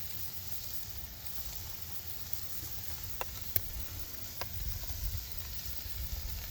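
Sirloin steak sizzling over a wood fire as its fat chars, a steady hiss broken by a few sharp pops in the middle.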